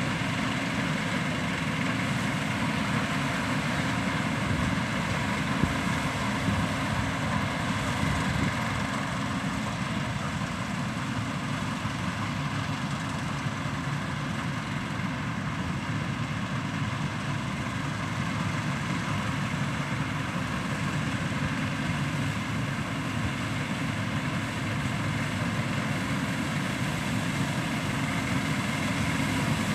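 Combine harvester at work cutting rapeseed, its engine and threshing machinery running as a steady drone with faint steady whines on top.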